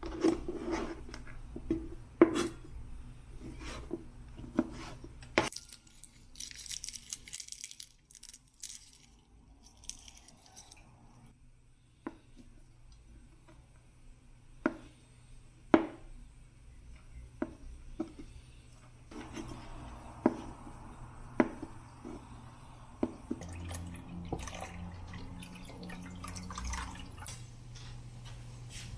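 Kitchen knife cutting on a cutting board: scattered sharp knocks of the blade on the board. There is a stretch of rustling about a third of the way in. In the last third a steady low hum comes in along with the small ticks and splashes of a pot of broth at the boil.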